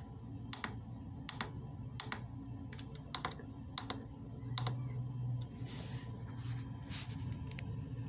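Diesel heater control-panel buttons being pressed, a run of sharp clicks roughly one a second, over the steady low hum of the 12 V diesel heater running.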